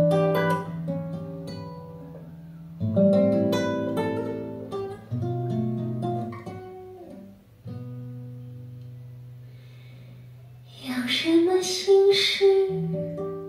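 Recorded song playing through QinSound hi-fi speakers driven by a Perreaux preamp and power amplifier: plucked acoustic guitar chords over held bass notes, with a voice singing a phrase from about eleven seconds in.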